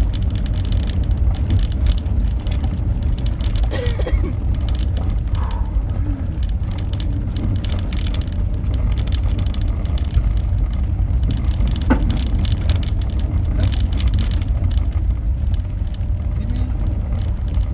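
Car driving over a rough gravel road, heard from inside the cabin: a steady low rumble of engine and tyres, with frequent short clicks and knocks.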